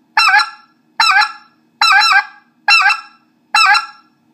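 Specklebelly goose call blown by mouth, giving the T-hit, a speck's two-note yelp: five short, sharp calls in an even rhythm, a little under one a second, each breaking in pitch.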